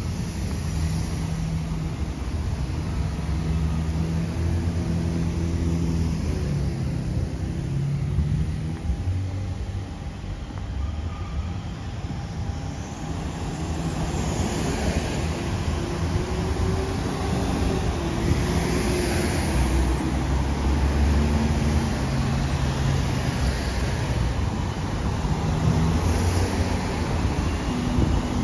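Steady city road traffic: cars driving past, their engines rising and falling in pitch as they go by over a constant tyre and road noise.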